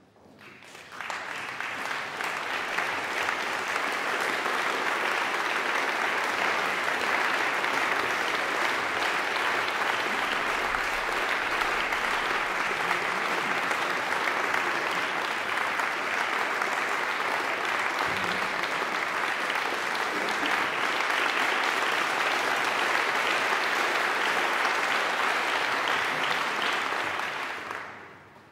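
Audience applauding, building up over the first second or two, holding steady, then dying away near the end.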